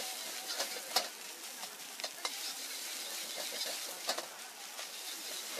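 Egg fried rice sizzling in a wok while a metal ladle scrapes and clanks against the wok as the rice is stirred and tossed. Several sharp clanks stand out over the steady hiss, the loudest about a second in.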